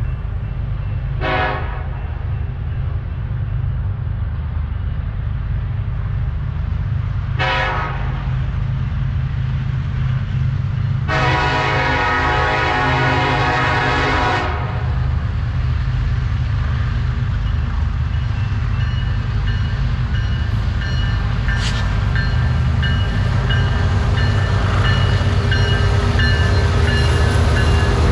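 Air horn of a Kansas City Southern SD70ACe diesel locomotive leading a freight train: two short blasts several seconds apart, then one long blast of about three seconds. Under it the approaching locomotives' diesel engines rumble steadily, growing louder as they pass close by near the end.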